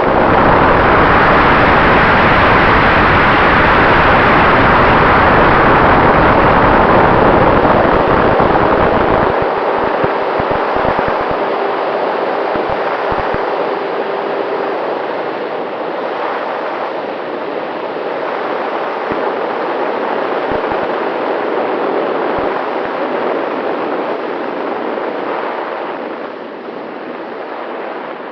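A Freewing F-15 RC jet's 90 mm inrunner electric ducted fan running at high power, heard from inside the fuselage: a loud rushing noise of fan and airflow with a faint steady whine under it. It is loudest for the first eight seconds or so, with low buffeting thumps, then eases off somewhat.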